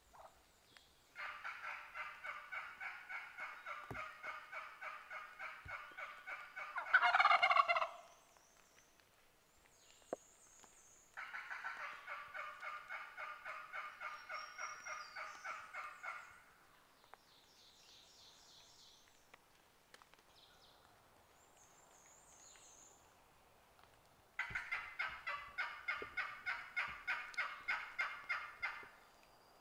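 Wild turkey hen yelping in three long runs of evenly spaced notes, about four a second. A loud gobble breaks in around seven seconds in.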